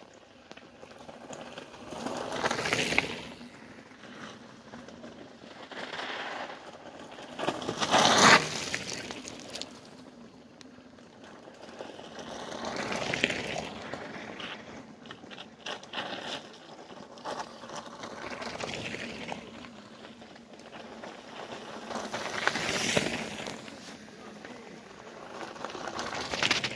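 Mountain bike tyres crunching and scraping over loose rocky gravel as riders descend past, one after another: a series of rising and falling swells of crunching noise, the loudest about eight seconds in.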